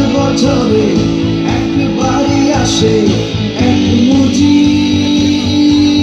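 Live band music: a regular drum beat with guitar and long held notes, as heard from the audience.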